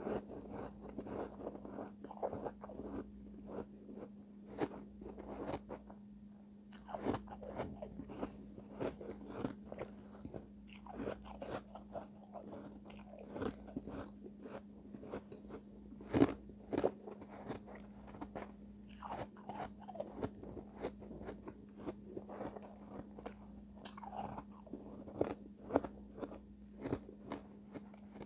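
Refrozen shave ice being bitten and chewed: a dense run of short icy crunches, several a second, with one loud crunch about sixteen seconds in.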